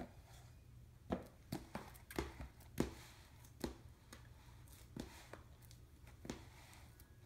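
A utensil scooping softened ice cream out of its carton into a container, knocking and tapping irregularly against the dish, about ten sharp taps.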